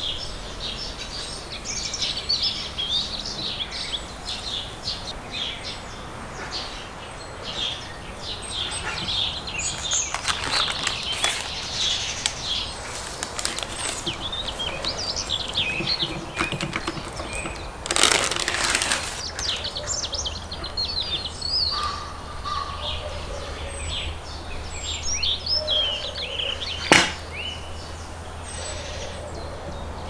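Small songbirds chirping and singing throughout. About eighteen seconds in there is a brief rustle of baking paper, and near the end a single sharp click.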